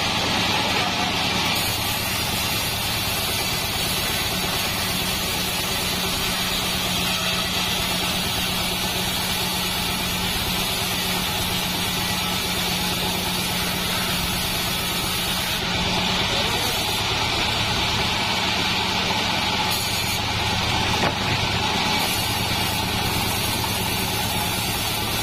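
Engine-driven bandsaw mill running while its band blade cuts lengthwise through a salam wood beam: a steady engine hum under the constant hiss of the cut. About sixteen seconds in, the hum drops lower in pitch.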